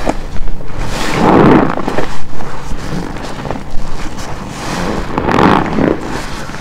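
Large black car wash sponge soaked with shampoo being squeezed by hand, giving wet squelches and sudsy sloshing. The two biggest squeezes come about a second in and about five seconds in, with a lighter one between them.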